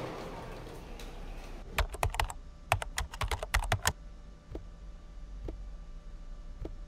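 Typing on a computer keyboard: a quick run of key clicks from about two to four seconds in, then a few single keystrokes.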